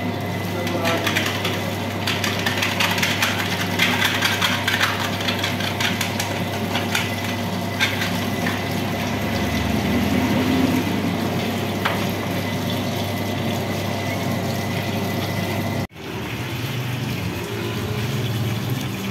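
Spiral dough mixer running with a steady motor hum as its hook churns wet flour dough, while a stream of water splashes into the steel bowl.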